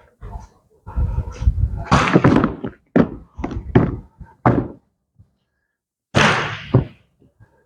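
A close run of irregular knocks and thunks for about five seconds, then one louder thump with a short tail about a second later.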